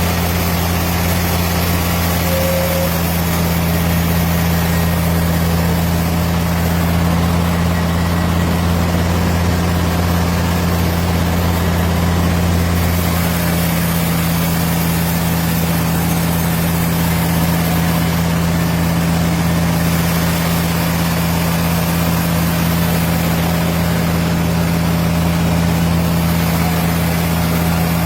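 Engine of a motor-driven wood saw running steadily with a constant hum. The deepest part of the hum drops a little about halfway through.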